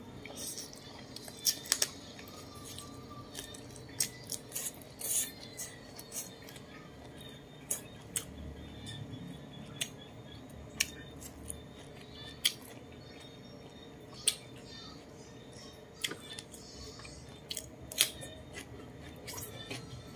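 Close-miked chewing of roast chicken: irregular sharp wet smacks and crunches from the mouth, over a faint steady hum.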